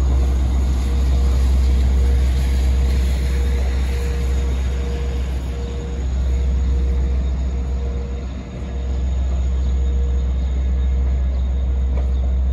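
Steady low rumble of a diesel-hauled train pulling away: two LIRR DM30AC locomotives hauling a track-inspection car, with a faint steady hum above the rumble.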